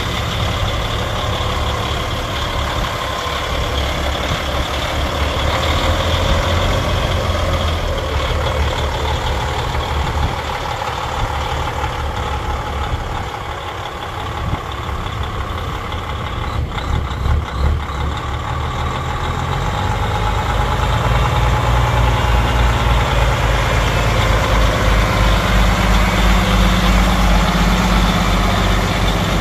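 Paccar 12.9-litre six-cylinder diesel of a 2013 Peterbilt 389 semi truck running steadily. A few short knocks come near the middle, and the engine sound grows louder about two-thirds of the way through.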